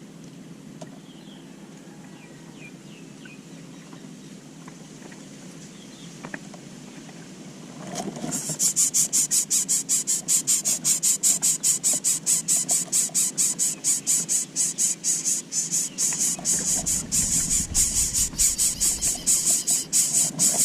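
Loud, fast, pulsing high-pitched insect chirring, about five pulses a second, starting suddenly about eight seconds in, after a quiet stretch with a few faint high chirps.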